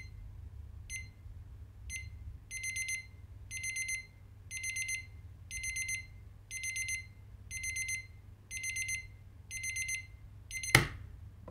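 Digital alarm clock going off: single high beeps once a second, then clusters of rapid beeps repeating once a second. A sharp knock near the end, and the beeping stops.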